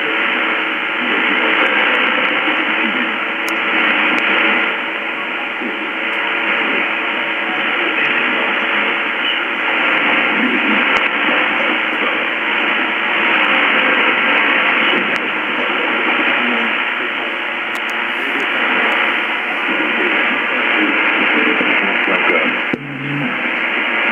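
Shortwave AM reception of Africa No.1 on 9580 kHz through a Lowe HF-235 receiver. A weak, distant signal comes through as steady band-limited hiss and static with faint programme audio beneath, and there is a brief dropout near the end.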